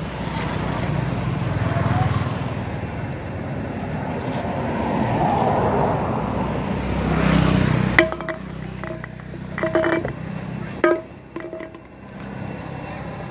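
Rumble of a passing motor vehicle, swelling and then cut off abruptly about eight seconds in. After it come a few sharp clicks and brief squeaks.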